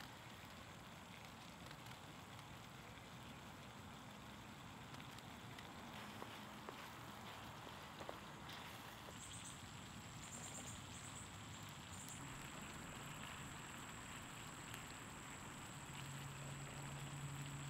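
Stew simmering in a pan over campfire embers: a faint, steady bubbling hiss with a few small ticks and pops.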